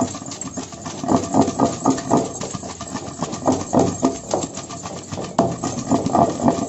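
Green chillies and salt being pounded with a pestle in a stone mortar (rolu), in rapid, steady strokes several times a second.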